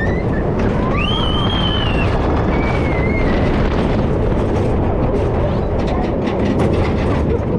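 Wooden side-friction scenic railway car rumbling steadily along the track, heard from the front seat, with rattling clicks from the wheels and track. Two brief high gliding squeals, about a second in and again around three seconds in.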